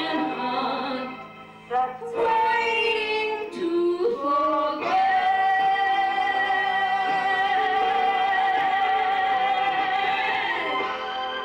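Woman singing a slow ballad into a handheld microphone over instrumental accompaniment, holding one long note from about five seconds in until near the end.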